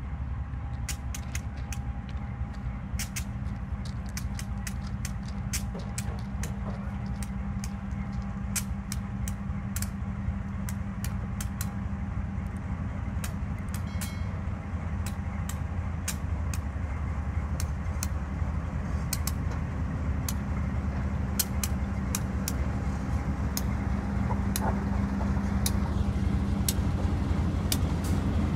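Diesel engine of a GE RGE-20 diesel-electric locomotive running as the train rolls slowly in. It is a steady low drone that grows louder as the locomotive draws near and passes close, with many sharp clicks scattered over it.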